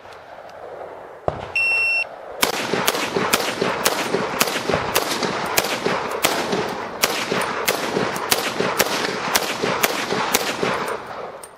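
A short high electronic beep, then an M1 Carbine firing a long string of rapid semi-automatic shots, more than twenty at roughly three a second.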